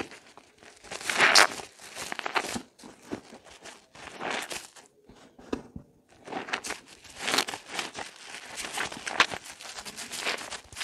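Hands squeezing a water-soaked bar of soap in thick lather, with a string of wet, crackly squeezes. The loudest comes about a second in, and a longer run of squeezing fills the second half.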